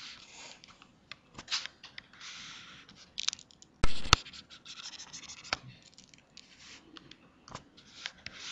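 Stylus strokes scratching on a tablet screen as handwriting and lines are drawn: short, irregular scratches and light taps, with one sharp, louder knock about four seconds in.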